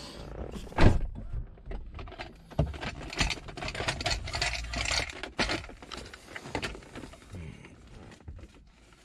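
Hands working the shifter boot and console trim loose: irregular scraping, rustling and rattling, with a sharp knock about a second in.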